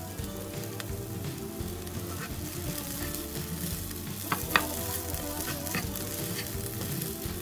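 Basmati rice and chickpeas frying in a nonstick pan while a plastic spatula stirs and scrapes through them, the rice being toasted before water goes in. Two sharp knocks of the spatula against the pan come a little past halfway.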